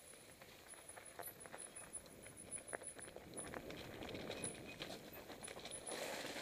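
Mountain bike moving over rocky, leaf-strewn trail: irregular clicks and rattles of tyres on stones and of the bike's frame and chain, growing louder and busier about four seconds in.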